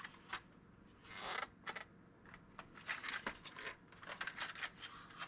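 Faint handling noise: scattered light clicks and a soft rustle as a plastic RC toy truck is picked up and turned over.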